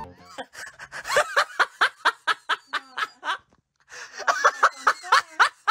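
A person laughing in two runs of rapid, breathy giggles, the first starting about a second in and the second after a short pause.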